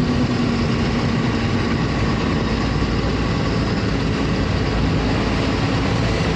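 Vehicle engines running on a waterlogged road, under a steady rushing noise of water and rain. A low engine hum fades out in the first two seconds.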